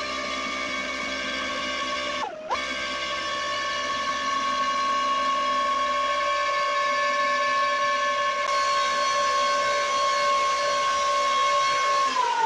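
Brushless electric ducted-fan thruster with contra-rotating rotors, whining steadily at high speed. Its pitch dips and recovers briefly about two seconds in, then falls away near the end as it spools down.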